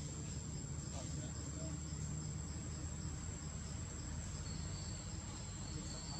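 Insects trilling steadily in the surrounding vegetation: one continuous high-pitched tone with a pulsing chirp just beneath it, over a steady low background hum.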